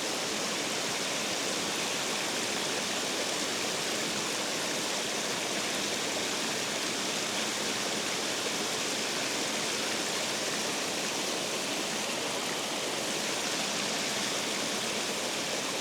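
Water rushing over a spillway: a steady, even rush that does not change.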